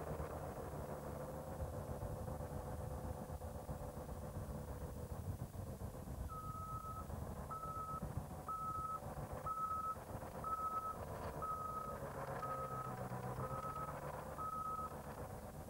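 Tracked snowcat engine running steadily. From about six seconds in, a vehicle reversing alarm beeps nine times, about once a second, in one steady tone.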